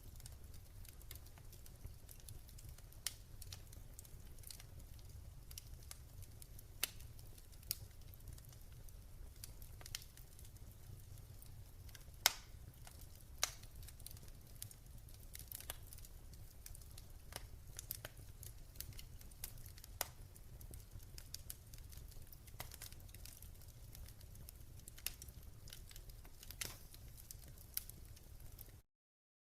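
Fire crackling: irregular sharp pops and snaps over a steady low rumble, stopping abruptly near the end.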